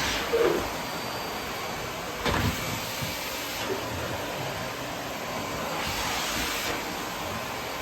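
Vacuum cleaner running steadily, with brief bumps just after the start and about two seconds in.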